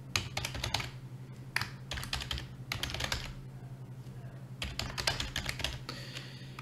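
Typing on a computer keyboard: quick runs of keystrokes in several bursts with short pauses between them, over a low steady hum.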